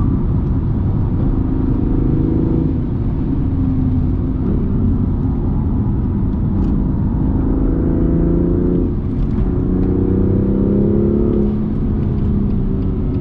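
BMW M2 CS's twin-turbo inline-six heard from inside the cabin under way on track, its pitch climbing and falling with the revs, with a gear change about nine seconds in, over heavy road and tyre rumble.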